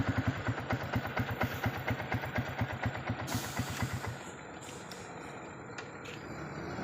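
Diesel truck engine running at low revs, a steady low pulsing of about seven beats a second, which fades away a little after four seconds in and leaves a quieter, even hum.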